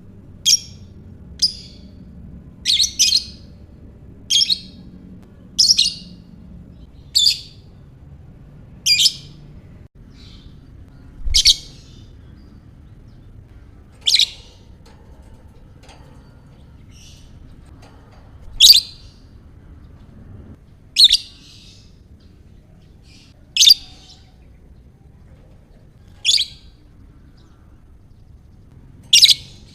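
Lovebird giving short, sharp, high-pitched chirps one at a time, about fifteen in all. They come every second or so at first and then every two to three seconds.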